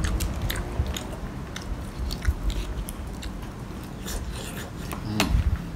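A person chewing a mouthful of deep-fried, oyster-sauce-marinated chicken close to the microphone: a string of wet mouth clicks and smacks, with a louder smack about five seconds in.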